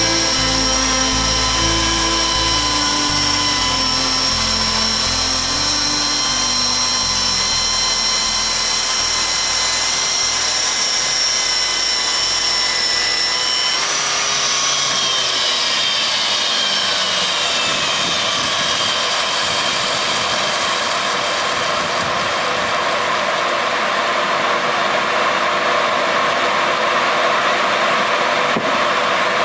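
Electric chainsaw mill running through a cut: a steady motor and chain whine with sawing noise. About halfway the whine drops in pitch over a few seconds, leaving a steady rushing noise.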